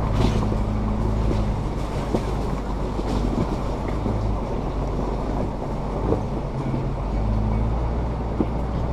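An off-road 4x4's engine runs steadily at low revs as the vehicle creeps over a rocky gravel trail, with tyres crunching and stones clicking now and then under the wheels.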